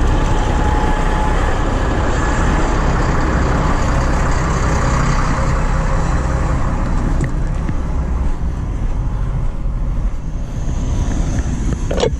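Heavy diesel equipment running close by, a dense steady rumble that thins out from about seven seconds in. A single sharp knock comes just before the end.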